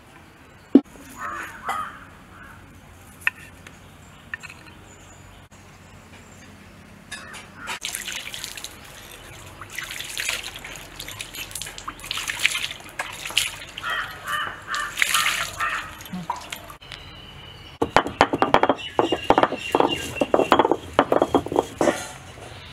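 Water poured by hand onto a stone grinding slab (ammikal), splashing and trickling in repeated surges. Then comes a quick run of rough scraping strokes as the stone roller is rubbed back and forth over wet spices on the slab. A few soft knocks come before the water.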